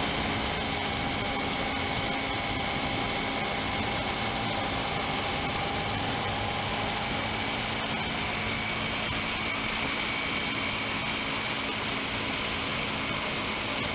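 Honda ST1100 motorcycle riding at a steady speed, heard from a camera mounted low beside the front wheel: constant wind rush and road noise with a steady engine hum.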